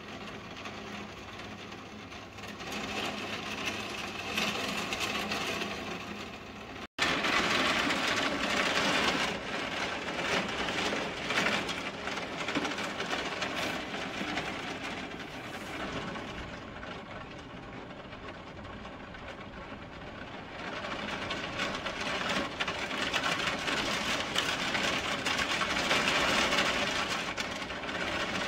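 Heavy rain pouring down in a steady hiss. It cuts out for an instant about seven seconds in and comes back louder, and swells again near the end.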